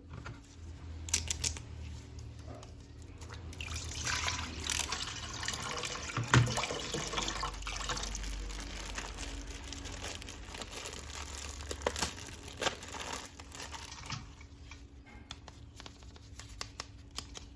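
Water splashing and trickling over a plastic toy being washed by hand, with crinkling and small handling clicks.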